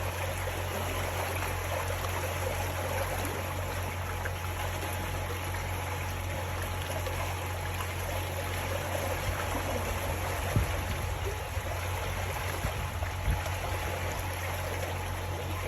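River water flowing steadily over a steady low hum, with two brief low thumps about eleven and thirteen seconds in.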